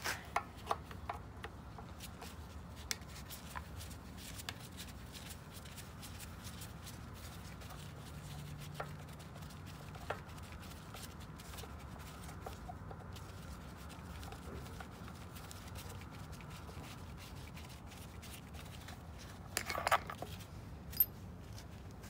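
Gloved hands working the plastic air cleaner cover off a Briggs & Stratton small engine: scattered light clicks and rubbing of plastic and metal, with a louder cluster of clicks near the end and one sharp click just after.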